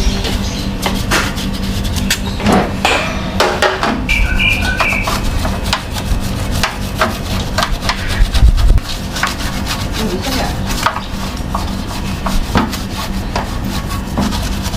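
Repeated clicks, knocks and rubbing as parts of an air conditioner's outdoor unit are handled during servicing, over a steady low hum.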